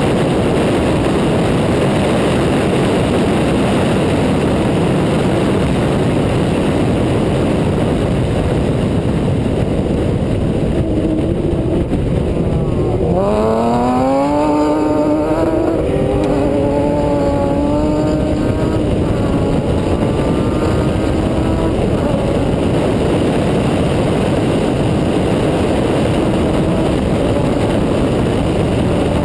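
Off-road race truck running at speed on a dirt track, with heavy wind and road rush on a bonnet-mounted camera. About halfway through, an engine note climbs in pitch several times in a row as it accelerates up through the gears, then fades back into the steady rush.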